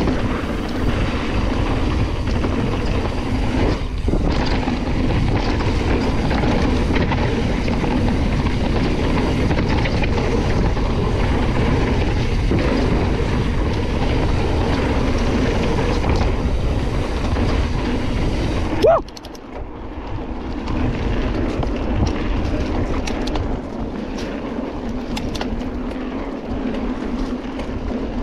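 Full-suspension enduro mountain bike riding down a dirt trail: steady rolling and rattling of tyres and bike. About two-thirds of the way through comes a short rising squeal with a jolt, after which the rolling noise is quieter.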